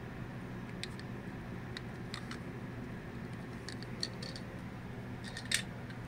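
A scatter of light clicks and taps from hands handling a small die-cast toy car and the camera, over a steady low hum; the sharpest click comes about five and a half seconds in.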